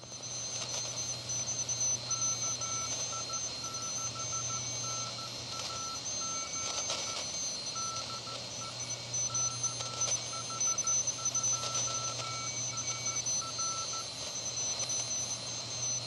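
Morse code (CW) signal received on the 40 metre band through the DMX-40 transceiver's audio: a single-pitch tone keyed in dots and dashes at about 14 words per minute, starting about two seconds in and stopping near the end. Under it is steady band hiss with a few crackles of static.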